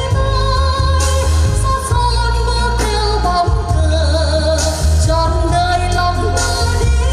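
A song with a singer holding long, wavering notes over a band backing with a heavy, steady bass.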